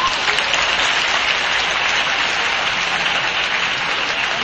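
Large audience applauding steadily, the clapping starting abruptly and easing off a little near the end.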